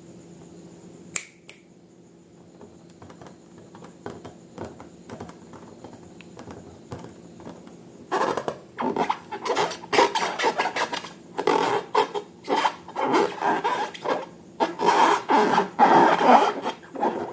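Slime being squeezed and worked by hand: a dense, irregular run of sticky clicks and crackles that starts about halfway through. Before it there is only a faint steady hum and a single sharp click about a second in.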